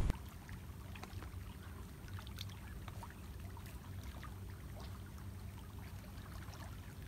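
Faint lakeside ambience: a low steady rumble with scattered small ticks and trickling splashes of water at the reedy shore.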